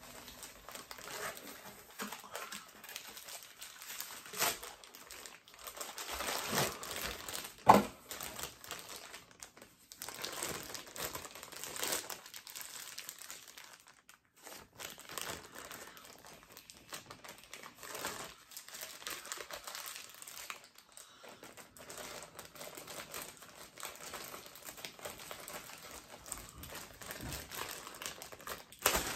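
Packaging crinkling and rustling as a boxed statue is unpacked, with a few tearing sounds. One sharp, louder sound stands out about eight seconds in, and another near the end.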